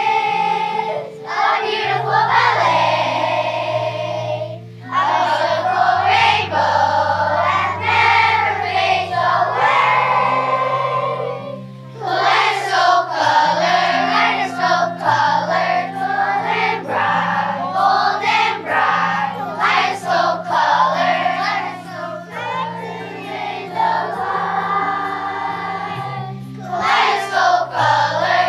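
Children's choir singing a song over instrumental accompaniment, with held low notes that change step by step beneath the voices.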